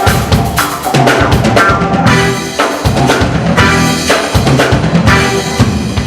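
Live soul band playing, with the drum kit loudest: bass drum, snare and rimshot hits over bass and other instruments.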